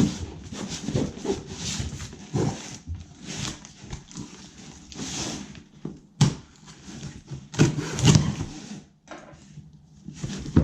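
Handling noise: irregular rustling and scraping with a few sharp clicks, loudest about eight seconds in.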